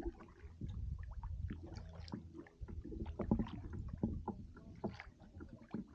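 Kayak being paddled: irregular knocks and clicks of the paddle and gear against the plastic hull, with splashes of the blades, over a steady low hum.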